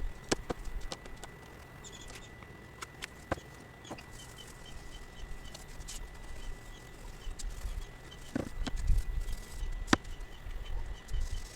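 Scattered light knocks and clicks of pieces being handled and set down on a work surface, with a bird chirping in quick repeated notes in the background and a faint steady high tone throughout.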